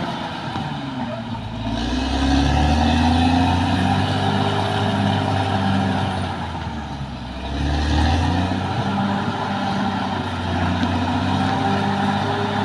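Caterpillar D6R XL bulldozer's diesel engine working. It rises in pitch and loudness about two seconds in, eases off briefly around seven seconds, then pulls up again and holds steady.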